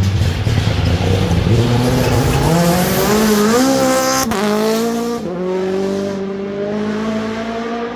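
A WRC Rally1 car's turbocharged four-cylinder engine at full throttle as the car comes past at speed, its note climbing in steps through the gears. There is a sharp crack about four seconds in, and after it an engine note that holds on and slowly rises as the car pulls away.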